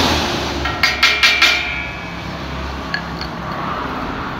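Four quick metallic strikes, each with a short ring, from a hammer tapping a joint of the steel frame, followed by two light ticks.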